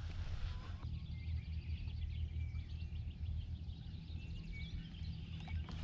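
Outdoor ambience: faint, scattered bird chirps over a steady low rumble.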